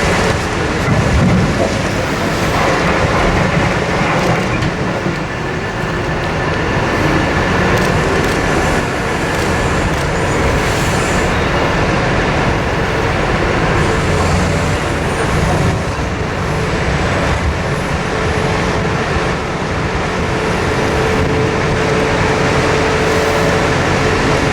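Liebherr R9350 hydraulic mining excavator working under load, its big diesel engine and hydraulics running steadily, with a faint steady whine through the noise.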